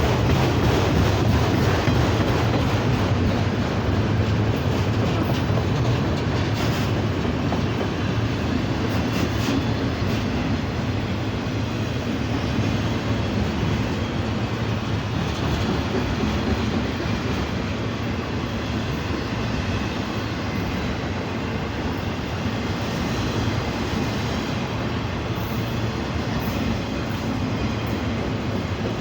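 Manifest freight train rolling past, a steady noise of steel wheels on rail that eases slightly over the stretch.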